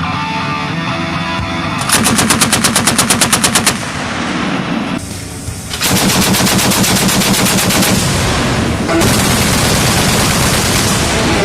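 Twin 35 mm anti-aircraft autocannons firing in rapid bursts, about ten rounds a second: one burst of about two seconds starting two seconds in, then a longer stretch of sustained fire from about six seconds in.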